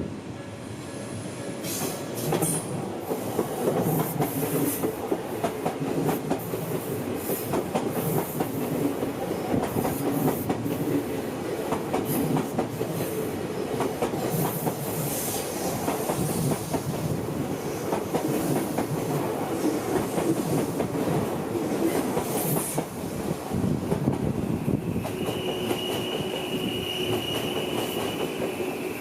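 Odakyu Odawara Line train running over the level crossing and turnouts, its wheels clicking irregularly over rail joints and points. A steady wheel squeal begins near the end.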